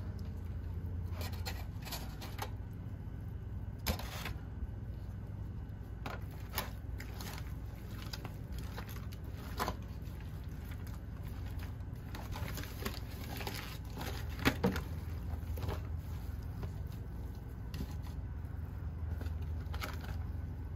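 Smoked pork butt being pulled apart by gloved hands in an aluminium foil wrap: foil crinkling and tender meat tearing, heard as scattered crackles and soft clicks. A steady low rumble runs underneath.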